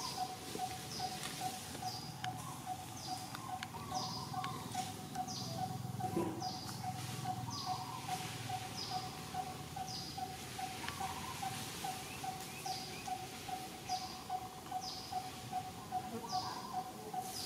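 Background birdsong: one bird repeats a short low note steadily, about three to four times a second, while a second high, falling chirp comes roughly once a second.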